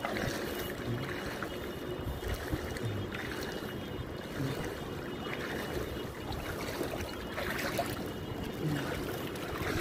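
Continuous sloshing and rushing of floodwater, mixed with vehicle noise.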